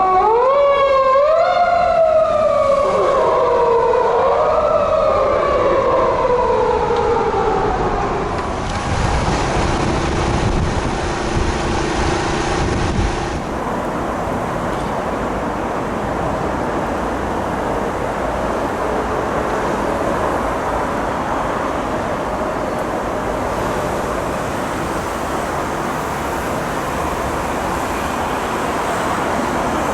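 Japanese police patrol car siren wailing, rising and falling in pitch several times and dying away about eight seconds in. After that there is only steady road noise.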